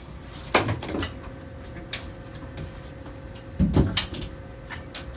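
Knocks and clunks of a heavy machine being handled and shifted, with a heavier low double thud about three and a half seconds in. A faint steady hum runs underneath.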